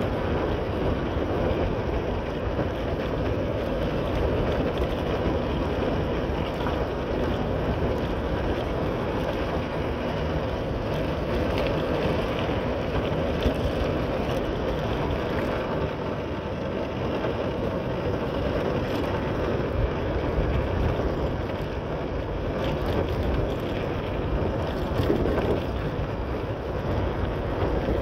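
Motorcycle running steadily at riding speed, its engine and road noise mixed with wind buffeting the microphone.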